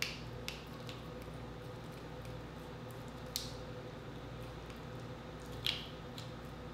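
Cooked king crab leg shell being pulled apart by hand: a few short, sharp cracks and clicks spaced seconds apart, the loudest near the end, over a faint steady hum.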